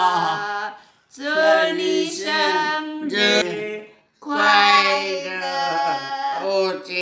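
A woman singing without accompaniment: held, sliding notes in three phrases, with short breaks about one second and four seconds in.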